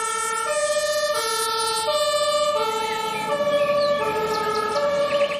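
Electronic toy fire-engine siren playing a repeating pattern of stepped tones, each held about two-thirds of a second, switching back and forth between low and high pitches.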